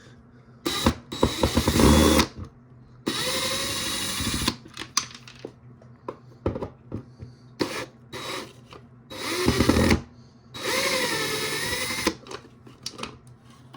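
A new power drill run in four short bursts of one to two seconds each, the motor's speed rising and falling with the trigger, with clicks between the runs.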